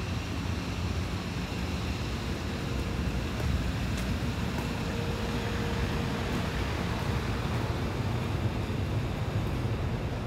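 Steady street ambience: a low rumble of distant traffic with wind noise on the microphone.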